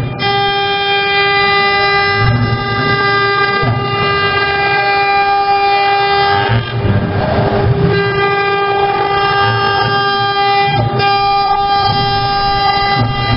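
High-speed CNC router spindle whining at a steady high pitch while its bit carves relief letters into a wood board, with a low cutting rumble underneath. About halfway through, the whine drops out for about a second under a brief rushing noise, then comes back.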